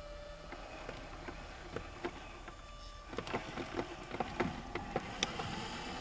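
Small electric motors of radio-controlled scale crawler trucks whining as they creep over the forest floor, with twigs and debris crackling and snapping under the tyres from about three seconds in.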